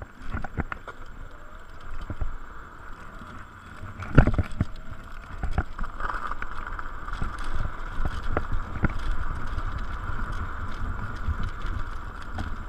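Electric scooter ridden along a rough tarmac path: low wind buffeting and tyre rumble, with a steady high whine from the motor that strengthens about six seconds in. Scattered knocks from bumps in the path, the loudest about four seconds in.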